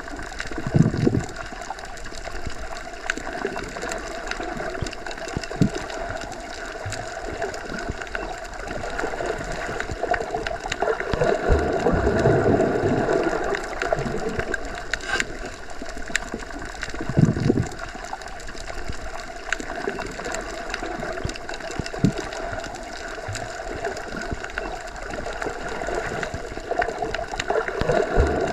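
Underwater ambience as heard by a submerged microphone: a steady, muffled water rush with some gurgling. A few low surges and thumps swell up, about a second in, twice in the middle and near the end.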